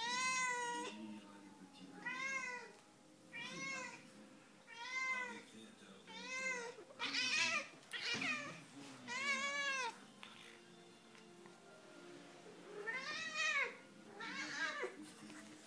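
Domestic cat meowing over and over: about ten drawn-out meows, each rising and then falling in pitch, with a pause of a few seconds before the last two.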